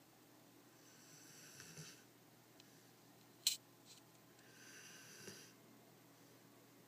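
Greater Swiss Mountain Dog snoring faintly in its sleep: two slow snoring breaths, a few seconds apart. A single sharp click comes between them.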